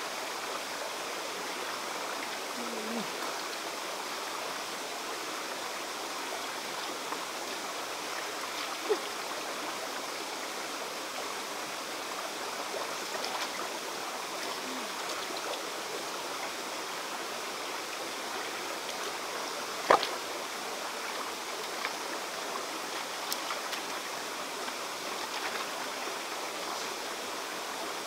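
Steady rushing of running water, like a stream, with a sharp knock about nine seconds in and a louder one about twenty seconds in.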